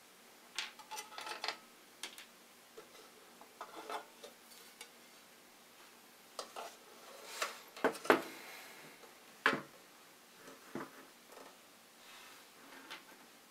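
Hard objects being handled and set down: scattered clinks, taps and knocks, the loudest a pair about 8 seconds in and another about a second and a half later.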